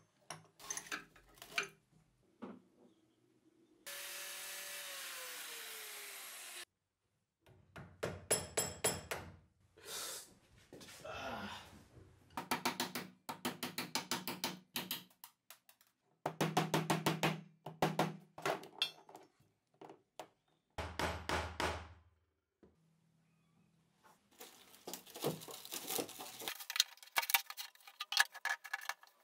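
Hand tools working steel machine parts in quick succession: several runs of rapid, even clicking, a few seconds of steady hiss with a tone that falls in pitch, and scattered knocks and clinks.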